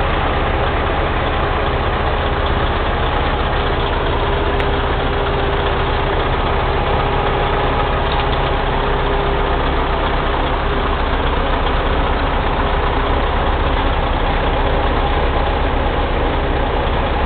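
Kenworth truck's heavy diesel engine idling steadily.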